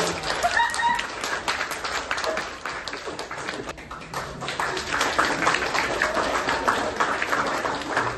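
A group of people applauding, with dense clapping that thins briefly midway and then picks up again.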